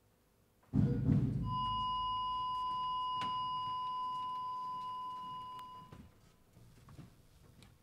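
A sudden low boom, then a steady electronic tone, like a long monitor beep, held for about four seconds before it cuts off.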